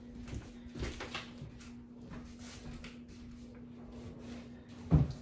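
Faint rustles and knocks of things being handled, over a steady low hum, with one heavy thump near the end.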